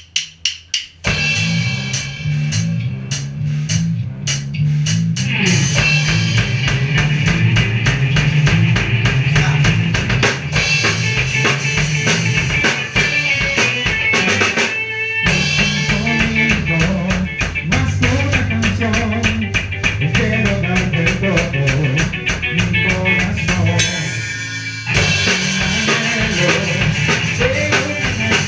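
Ska-punk band playing live in rehearsal: a few drumstick clicks count in, then bass and drums start, and the full band with guitar comes in about five seconds later. The band stops for a beat about halfway and thins out briefly near the end before coming back in.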